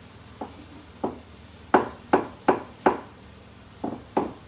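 Meat cleaver chopping down onto a wooden chopping board: about eight sharp knocks at an uneven pace, the four loudest in quick succession midway.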